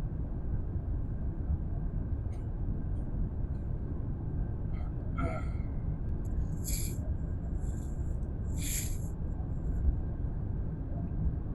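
Airliner cabin noise: a steady low rumble with a faint whine, broken by a brief voice about halfway and two short hissing sounds near the end.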